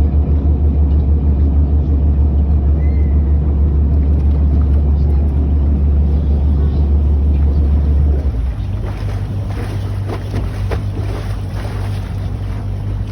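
Boat engine running with a loud, low rumble that drops to a quieter, steadier hum about eight seconds in.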